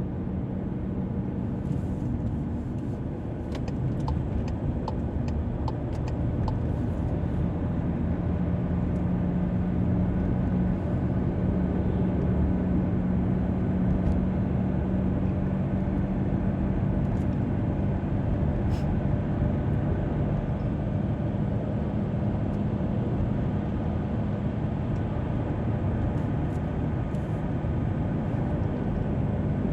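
Car driving steadily along a highway: continuous engine and tyre noise with a steady hum, and a few light ticks about four to six seconds in.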